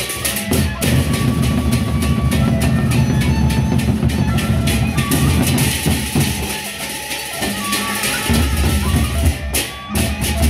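Gendang beleq ensemble playing: large Sasak barrel drums beaten in a rapid, dense rhythm with hand cymbals clashing over them. The drums thin out around six seconds in, leaving ringing metal tones, and come back in full about eight seconds in.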